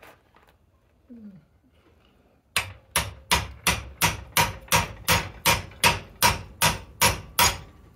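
Hand hammer striking a steel horseshoe clamped in a blacksmith's leg vise: a steady run of about fourteen sharp metallic blows, roughly three a second, beginning about two and a half seconds in.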